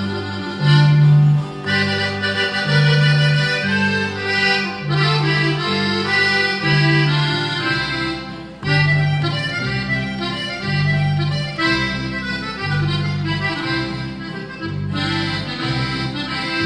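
Instrumental break of a norteño-style song: an accordion plays the melody over an electric bass alternating between two low notes in a steady two-beat rhythm.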